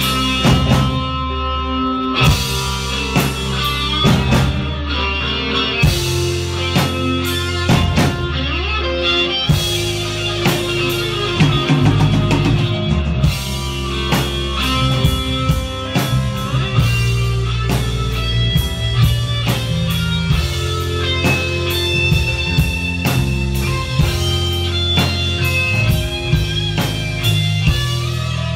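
Live instrumental rock: an electric guitar plays the melody over a drum kit, with steady low bass notes underneath.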